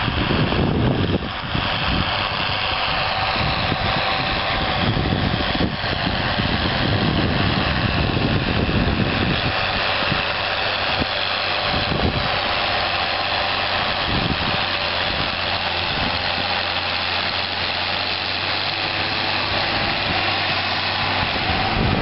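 John Deere 6810 tractor's six-cylinder diesel engine running steadily under load as it pulls a mouldboard plough, with wind buffeting the microphone in the first second or so.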